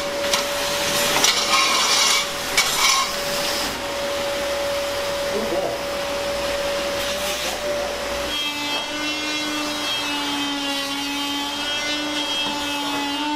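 Vacuum cleaner with a hose and floor wand running with a steady whine, sucking up drywall debris from a concrete floor, with scraping and rubbing of debris in the first few seconds. About eight seconds in the whine drops to a lower pitch.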